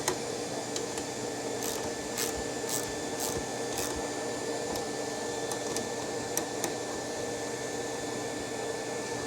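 A steady machine hum, with a run of about five sharp clicks roughly half a second apart a couple of seconds in, and a few scattered clicks later.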